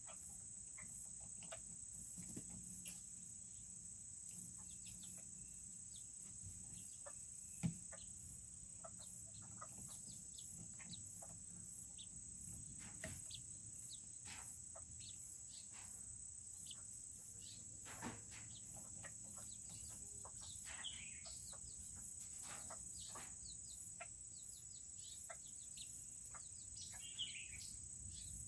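Serama chickens in their coop: a few short, high peeping calls and scattered small clicks and taps, with one sharper tap about 8 seconds in, over a steady high-pitched insect-like drone.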